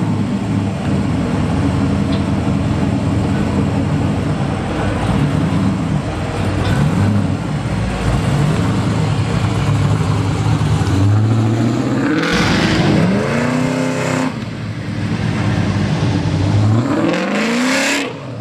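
LS V8 engine of a swapped Oldsmobile 442 running as the car rolls along, with the engine revved up and back down about two-thirds of the way in, and revved up again near the end as it drives away.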